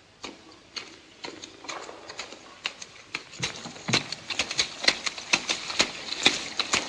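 Boots squelching and splashing through wet mud. The steps come as a run of sharp wet smacks that grow quicker and louder as the walker comes closer.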